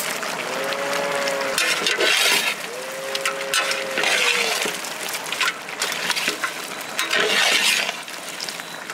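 A long metal ladle stirring chopped goat head meat in a large metal pot, in three wet, scraping strokes. Two drawn-out steady tones sound in the first half.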